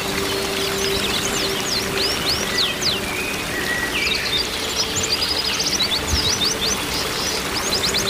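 Rushing water from a waterfall with a dense run of quick, high chirps from small songbirds over it. A faint steady low tone runs beneath.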